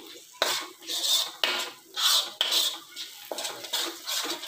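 Metal spatula scraping around a metal kadai, about two strokes a second, as a thick cashew-and-almond paste masala is stirred and fried.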